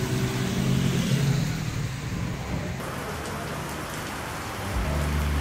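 Steady rain falling on a wet street, with the low hum of passing vehicles' engines underneath, stronger near the end.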